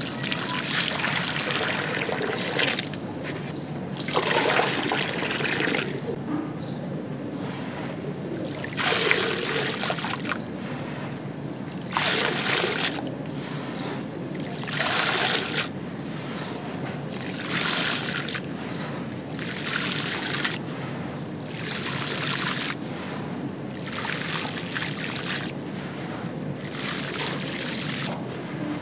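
Dry, gritty red sand poured into a puddle of water, hissing and trickling as it lands and sinks. It comes in about a dozen separate pours, each a second or two long, with short pauses between.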